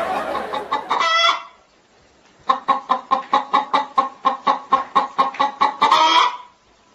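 A hen clucking, with a short wavering call about a second in, then a fast run of clucks, about five a second for some three and a half seconds, ending in one longer call.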